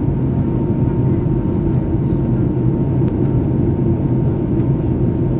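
Steady cabin noise inside a jet airliner in flight: a constant low rumble of the engines and rushing air, with a faint steady whine above it.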